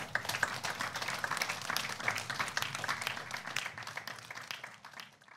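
Audience applauding with many quick overlapping claps, fading in the last second and then cutting off.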